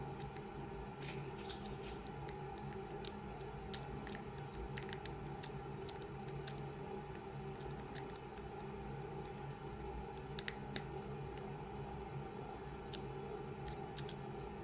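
Lock pick raking the pins of a 40 mm HeHe padlock under tension: irregular light metallic clicks and scrapes, bunching about a second in and again with a few sharper clicks near the ten-second mark. A low steady hum lies underneath.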